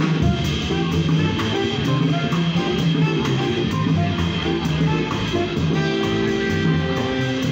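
Live jazz combo playing: a plucked upright bass line with a drum kit keeping time on the cymbals and an electric keyboard.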